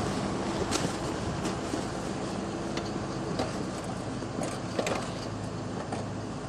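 Engine of a tracked over-snow vehicle running steadily, with no revving, and a few sharp clicks and knocks scattered over it.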